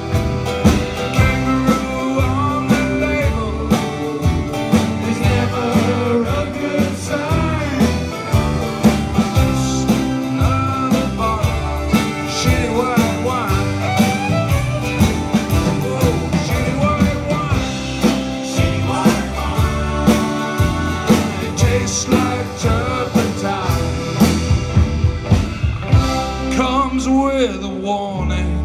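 Live folk band playing an instrumental break with a steady beat: bowed fiddle over banjo, accordion, acoustic guitar and drums, settling on a held chord near the end.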